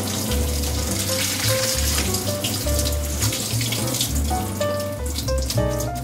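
Cold tap water running onto boiled somen noodles in a stainless steel mesh strainer in a sink, a steady splashing hiss. Background music with a pulsing bass line and a light melody plays over it.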